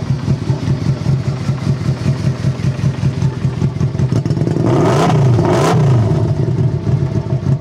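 1999 Yamaha Royal Star Venture's 1300cc carbureted V4 running at idle through its mufflers, revved twice in quick succession about five seconds in, then settling back to idle. The exhaust has a little growl that is not the stock sound, which the dealer suspects comes from the baffles having been taken out of the mufflers.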